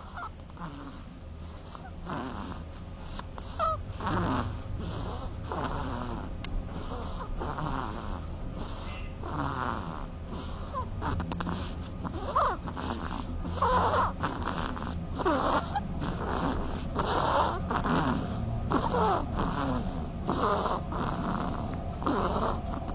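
Duckling snoring while asleep: a long run of short snores, about one a second.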